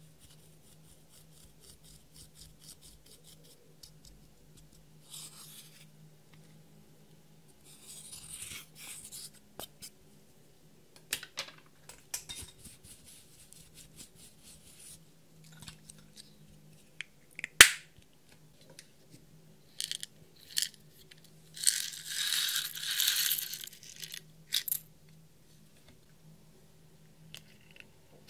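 Close-up slime-making handling sounds: scattered clicks and taps with short bursts of hissy scraping. The loudest are a single sharp click about 17 seconds in and a longer scraping stretch around 22 to 24 seconds. A faint steady hum runs underneath.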